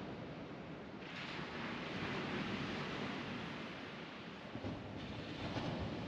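Gentle ocean surf washing onto the beach as a steady rush of noise. One wave swells about a second in and eases off, and another builds near the end.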